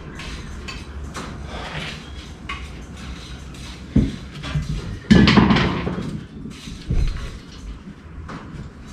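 Metallic clanks and knocks of hand work on a boat's inboard engine: a knock about four seconds in, a loud clatter lasting about a second just after five seconds, and another knock near seven seconds.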